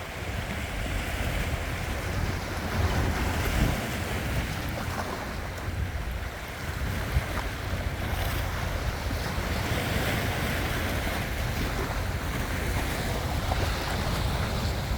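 Sea waves washing on the shore, a steady rush that swells and eases, with wind rumbling on the microphone.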